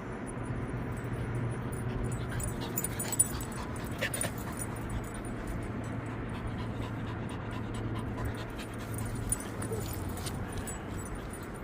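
Border collie panting steadily, with a brief sharp click about three seconds in.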